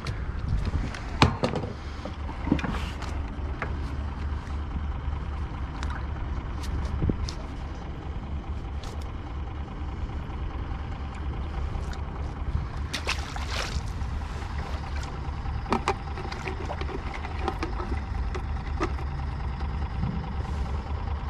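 A steady low motor hum with a few faint steady tones above it, and scattered sharp clicks and knocks, the loudest about a second in.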